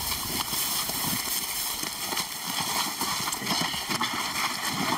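Several people's footsteps and scuffling through dry grass while carrying a heavy load, an irregular run of knocks and rustling.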